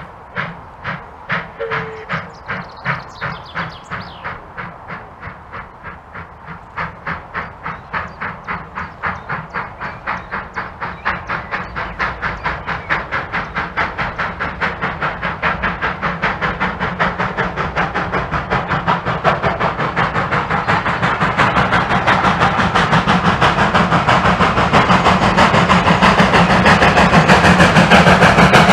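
Bagnall 0-6-0 saddle tank steam locomotive working towards the listener, its exhaust beats slow at first, then quickening to several a second and growing steadily louder as it draws closer.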